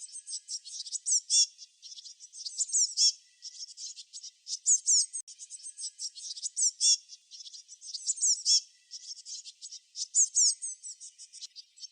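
Small songbirds chirping in quick, high-pitched sweeping notes, several calls overlapping in dense clusters with only brief gaps.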